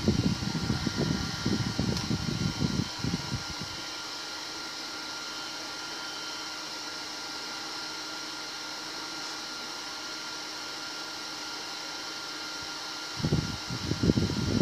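Home-built bladeless fan running at maximum speed, its centrifugal blower (a modified vacuum-cleaner motor) giving a steady, noisy rush of air with a faint steady whine. Low rumbling gusts of its airflow buffet the microphone for the first three seconds or so, and again from about a second and a half before the end.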